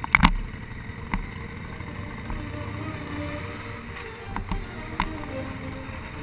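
Motorcycle engine running at low riding speed, a steady low rumble with road and wind noise. A cluster of sharp knocks right at the start, and a few single clicks later on.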